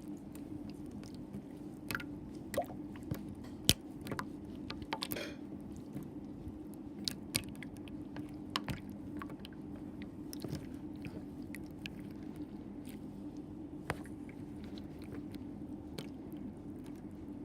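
Homemade slime squished and handled, making irregular wet clicks and pops, bunched in the first half, over a steady low hum.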